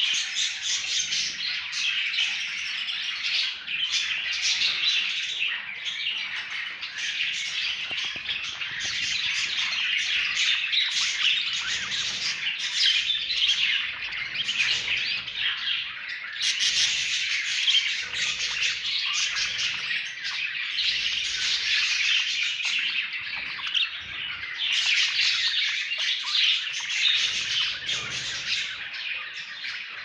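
A cage full of budgerigars chattering without pause: many overlapping chirps, warbles and squawks.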